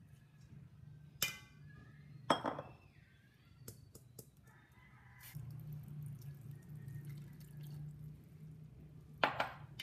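Kitchen clatter: three sharp clinks of dishes or utensils knocking together, the first two ringing briefly, with a few lighter ticks between them. A steady low hum runs underneath and grows louder about halfway through.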